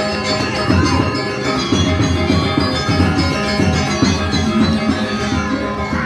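Balinese gamelan ensemble playing: many bronze-keyed metallophones ringing together in dense interlocking notes, with drum beats underneath.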